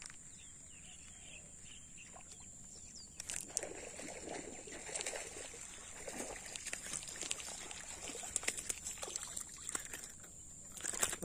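A hooked fish thrashing and splashing at the surface of shallow water, irregular splashes starting about three seconds in and stopping near the end as it is lifted clear. A steady high-pitched whine runs underneath throughout.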